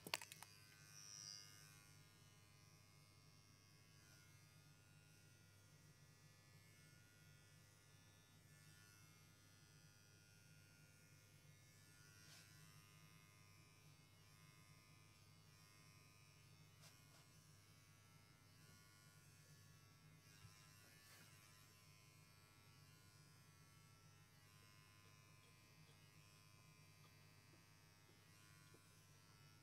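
Handheld electric pet hair clippers running with a faint steady hum while trimming a long-haired cat's coat. A sharp click sounds at the very start.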